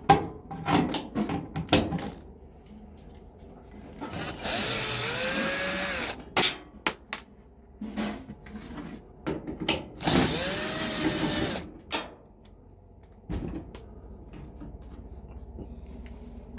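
Power drill driving out screws from a clothes dryer's panels: two runs of about two seconds each, the motor's pitch rising as it spins up. Clicks and knocks from handling come in between.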